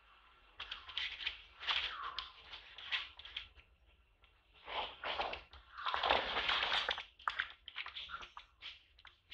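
Dry leaves rustling and crunching in a string of short bursts, loudest about six seconds in, as macaques move about on the leaf litter.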